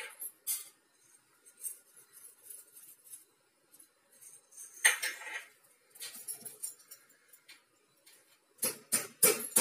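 Black peppercorns tipped from a small bowl into a stone mortar, rattling in about five seconds in, with light clicks and ticks around it. Near the end come several sharp knocks as a pestle starts pounding the pepper and cumin seeds in the stone mortar.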